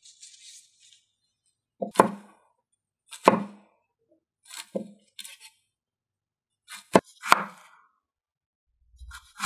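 Cleaver chopping through a stack of thin raw taro slices onto a wooden cutting board: about six separate chops, spaced a second or more apart, two of them in quick succession a little past the middle.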